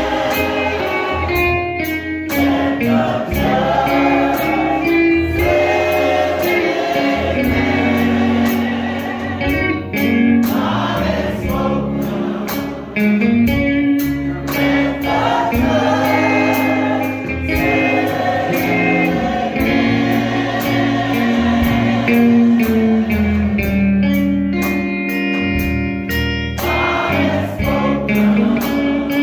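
Gospel music: a choir singing with instrumental accompaniment, long held notes over a steady beat.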